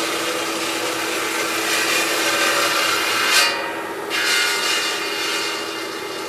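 Machine working marble with a steady grating rasp over a constant motor hum. About three and a half seconds in, a short sharp scrape; the high hiss then cuts out for under a second and comes back.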